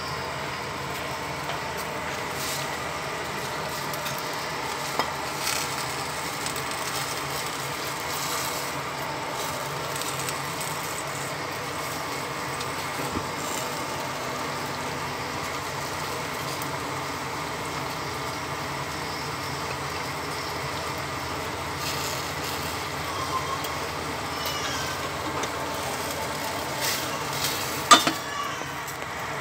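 Stainless steel pot of broth with pennywort leaves boiling steadily on the stove, a continuous bubbling hiss. A sharp knock comes near the end.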